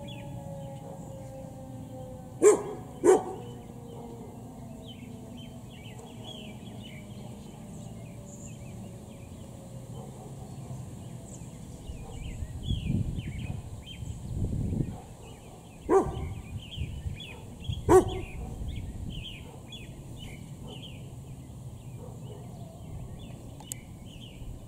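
A dog barks, twice about two and a half seconds in and twice more later, over continual bird chirping. At the start the faint falling tones of an outdoor warning siren winding down fade out, and a low rumble swells briefly about halfway through.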